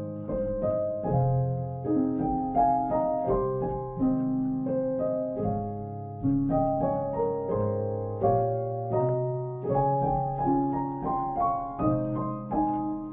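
Background music: a piano playing a slow, gentle piece of notes and chords, each struck and left to fade.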